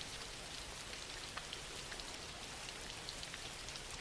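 Steady soft rain falling, an even hiss with faint scattered drop ticks.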